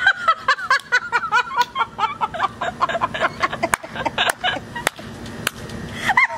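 Two young women laughing hard, in squeaky, breathy giggles that run on with short gasps between them.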